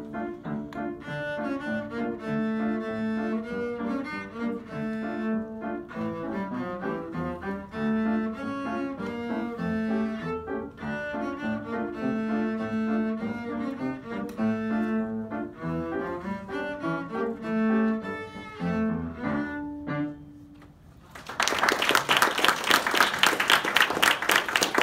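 Cello with piano accompaniment playing the closing bars of a piece, ending on a held note about twenty seconds in. After a short pause, applause breaks out and runs to the end.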